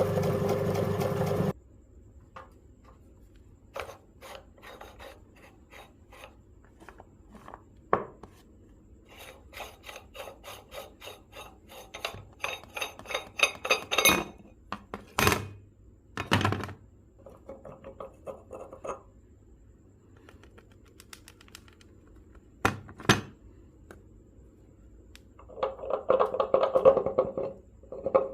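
Electric meat grinder's motor running with a steady hum, cutting off suddenly about a second and a half in. Then irregular scraping, rubbing and clicking handling noises follow, with a few sharp knocks and a louder scraping stretch near the end.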